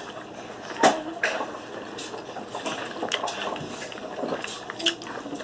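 Close-up wet eating sounds: chewing and lip smacking on seafood-boil food, with scattered short clicks.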